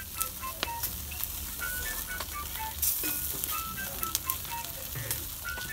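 Fish and meat skewers sizzling on a charcoal grill, a steady hiss with scattered crackling pops, under background music that carries a light melody of short high notes.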